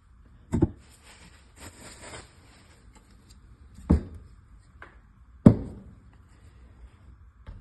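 Three sharp knocks, a second or more apart, with a lighter click and some brief rustling between them; no motor running.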